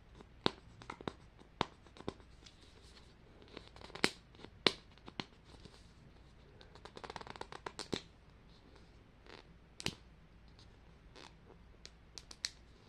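A Mini Brands plastic capsule ball being handled and unwrapped: scattered sharp clicks and taps of hard plastic, with a short burst of wrapper crinkling and tearing about seven seconds in.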